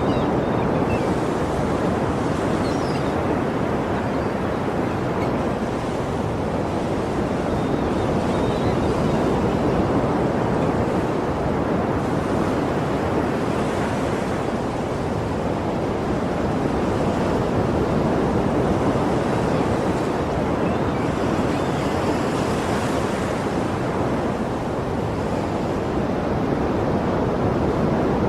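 Sea waves breaking and washing ashore: a steady rush of surf that swells and ebbs, with the hiss of breaking water rising about three times.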